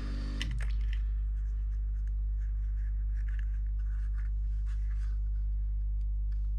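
Steady low hum at an even level, with faint light scratching and handling sounds from small parts being moved on the workbench.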